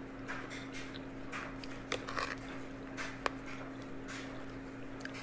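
Close-miked chewing of a mouthful of food, with soft wet mouth noises and a couple of sharp clicks, over a steady low hum.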